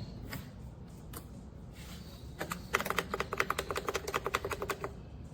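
A few scattered clicks, then a fast, even run of clicking, about ten clicks a second, for about two seconds in the second half.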